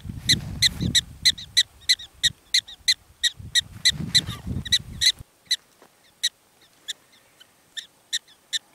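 Black-tailed prairie dog calling: a rapid series of short, sharp, high chirping barks, about three a second, thinning to scattered calls after about five seconds. A low rumble sits under the first five seconds.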